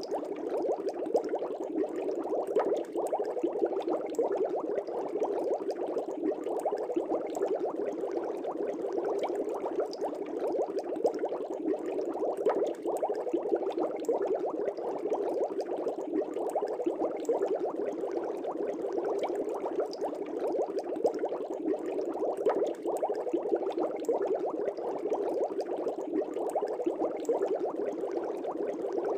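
Aquarium air bubbles streaming up through the water of a fish tank, a steady, unbroken bubbling.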